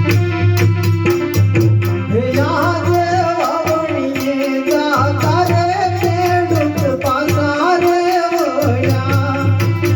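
Gujarati folk devotional music played over a sound system: hand drums keep a steady rhythm under a held drone, and about two seconds in a wavering, ornamented melody line comes in and drops out again near the end.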